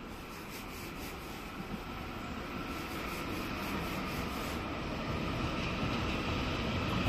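An electric train approaching out of a tunnel. Its rumble grows steadily louder, with a faint steady high whine coming in partway through.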